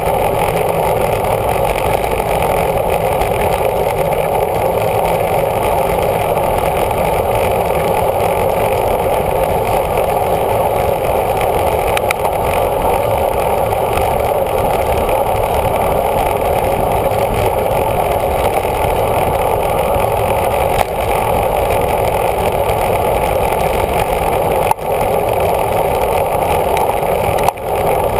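Steady rush of wind over a bicycle-mounted camera's microphone while riding at speed, with a few brief dips near the end.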